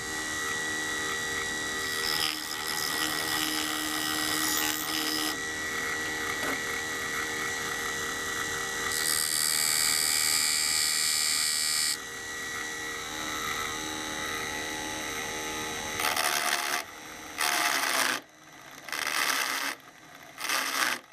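Small electric motor of a mini wood lathe running steadily while a file is held against the spinning poplar handle, a rasping scrape that rises and falls as it cuts. About sixteen seconds in the motor stops, and a few short, separate file strokes follow.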